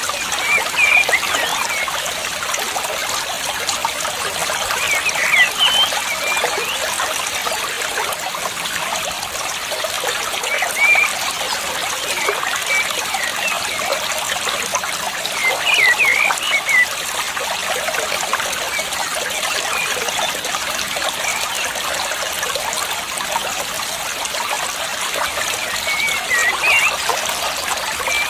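Water trickling steadily, with short high bird chirps breaking in every few seconds.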